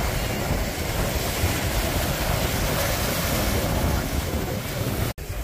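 Ocean surf washing onto a sandy beach, with wind gusting on the microphone, and the sound cutting out for an instant near the end.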